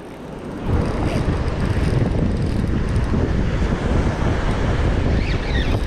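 Wind buffeting the microphone over the wash of surf on the beach, a rough low rumble that picks up under a second in after a quieter start.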